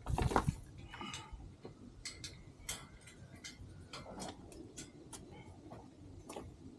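Gloved hands working compost into the soil of a metal raised bed: a loud scuffing burst at the start, then scattered crunchy ticks and scrapes of soil and small stones.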